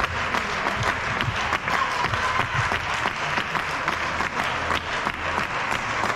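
Spectators clapping steadily, many hand claps blended together.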